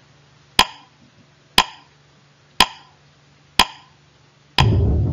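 Countdown-timer sound effect: four sharp ticks, one a second, then near the end a louder, low sound that marks time up.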